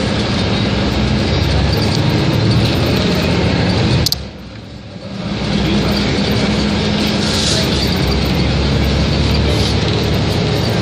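City bus engine and road noise heard from inside the cabin while the bus drives along. About four seconds in there is a sharp click, and the sound drops away for about a second before coming back.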